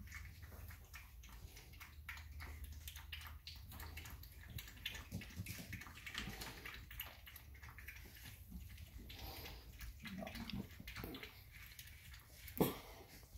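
An adult dog licking and nuzzling puppies: a steady run of small wet licking and smacking sounds, with one sharper knock near the end.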